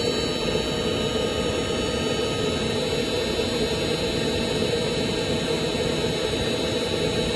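Binar diesel-fired engine preheater running with a steady, even roar, which the owner takes as a sign that it is working for now.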